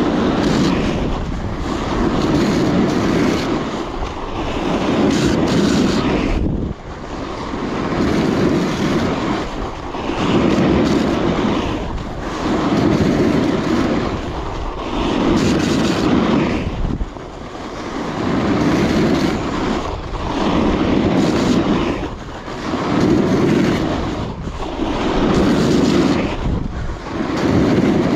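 Edge of a Coiler Nirvana alpine snowboard carving through groomed snow, a loud scraping hiss that swells with each turn and eases between them, about one turn every two and a half seconds.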